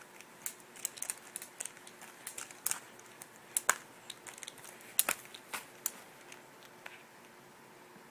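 A run of irregular sharp clicks and crackles, about a dozen louder ones among many faint ones, stopping about seven seconds in.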